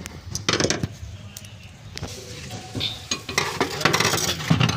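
Metal tools and parts clinking and knocking as they are handled, in short irregular strokes that grow busier near the end.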